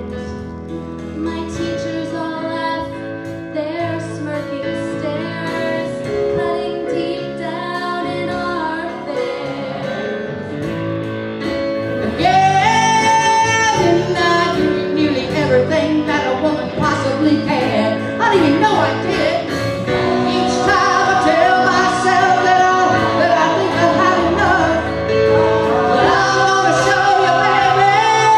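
A woman singing a 1960s-style song over band accompaniment, getting fuller and louder about twelve seconds in.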